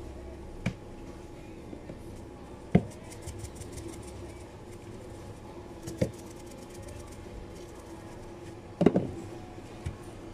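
Handling sounds on a sushi prep counter: sharp knocks and taps as items are picked up and set down, the loudest about three seconds in and a double knock near the end, over a steady hum.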